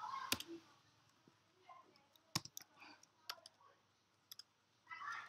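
Sparse clicks of computer keys, single clicks spread a second or so apart.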